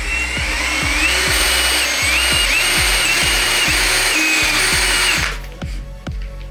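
Electric power tool running, its motor whine dipping and recovering several times as it takes load, then stopping a little after five seconds in. Background music with a steady beat plays throughout.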